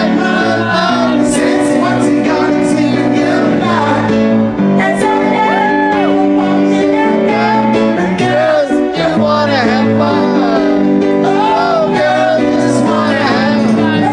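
A woman singing live with instrumental accompaniment, holding long notes with vibrato over sustained chords.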